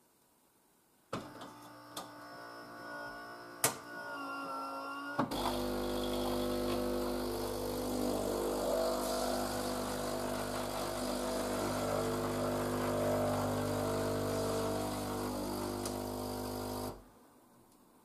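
Philips EP1200 automatic coffee machine rinsing before first use: a click, a few seconds of quieter mechanical whirring with a short rising whine and a couple of sharp clicks, then its pump hums steadily for about twelve seconds and cuts off suddenly.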